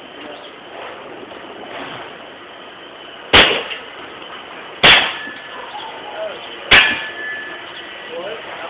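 Three hard clanging blows of a tool striking an object being smashed, each ringing briefly, about a second and a half to two seconds apart.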